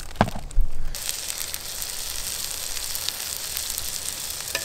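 Venison burger patties sizzling in a cast-iron skillet: a steady frying hiss that comes in suddenly about a second in. Before it, a couple of knocks from handling.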